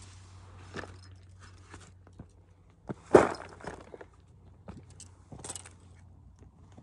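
Footsteps and gear-handling noises: scattered light clicks and scuffs, with one loud knock about three seconds in.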